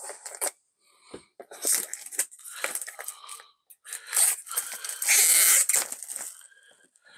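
Cellophane shrink wrap on a small cardboard box being slit with a knife blade, then crinkling and tearing as hands peel it off in several rough bursts. The loudest stretch comes about five seconds in.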